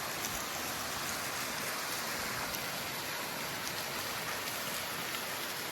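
Ribbon Fall's water coming down as spray and splashing onto the rocks at its base: a steady, even hiss of falling water.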